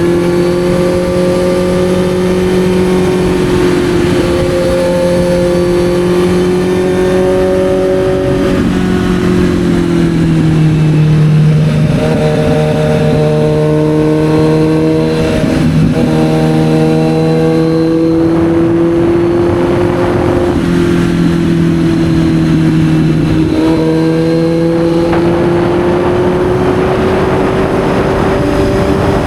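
Kawasaki Z900's inline-four engine running as the bike is ridden. The engine note holds steady, shifts pitch several times, then climbs slowly near the end.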